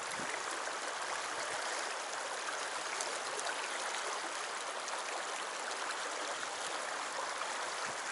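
Shallow mountain stream running over rocks in a riffle: a steady rush of water.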